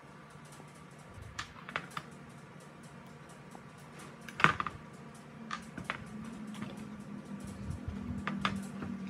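Scattered clicks and light knocks of tools and small parts being handled, the loudest about halfway through, over a low steady hum that swells in the second half.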